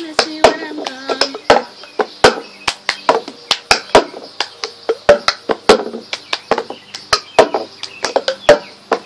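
Cup-song rhythm: hand claps alternating with a cup tapped, slid and knocked down on the ground in a quick repeating pattern, which stops right at the end. A sung note trails off about a second in.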